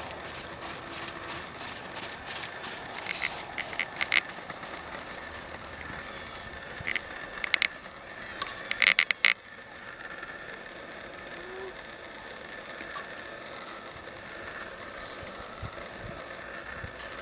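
A horse being ridden in a sand arena: a steady hiss with clusters of short sharp clicks and knocks, about three to four seconds in and again around the middle.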